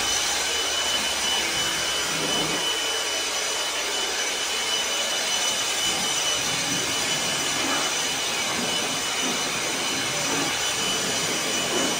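Cordless handheld leaf blower running steadily, a rush of air with a constant high fan whine, blowing debris off a pickup truck's bed floor.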